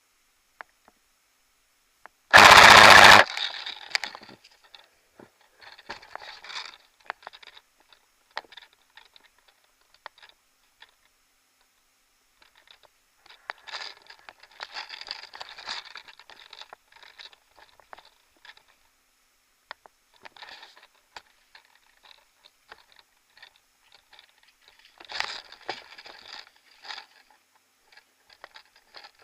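An airsoft rifle fires one rapid full-auto burst of about a second, much the loudest thing here. It is followed by scattered crunching and scraping, typical of footsteps and movement in snow.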